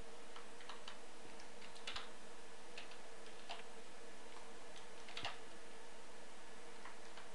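Scattered computer mouse clicks and keyboard key presses, about a dozen short irregular clicks, over a steady faint hiss and hum. They are the sound of code being selected, copied and pasted between editors.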